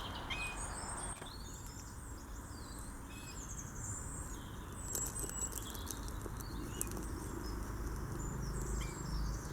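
Small birds chirping in many short, high calls, over a steady low rumble of road traffic that grows a little louder near the end.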